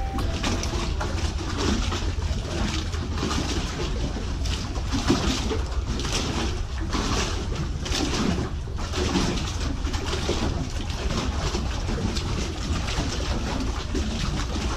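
Steady wind rumble on the microphone over choppy water lapping among wooden pier pylons, with birds cooing.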